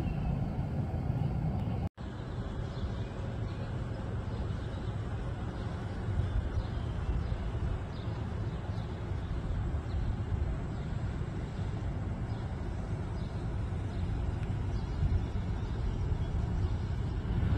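Steady outdoor background rumble, with a brief dropout about two seconds in where the video cuts.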